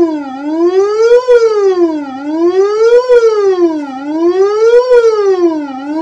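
Homemade FPGA alarm system's siren tone from a small portable speaker, a buzzy electronic tone sweeping steadily up and down in pitch, about one rise and fall every two seconds.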